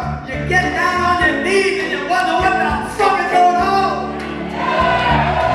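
Live band playing a soul-rock song: electric guitar, drums and bass under a male lead singer's voice.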